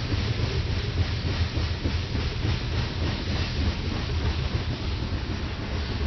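Freight train of covered hopper cars rolling past: a steady low rumble of steel wheels on the rails, with a lighter hiss of rail noise above it.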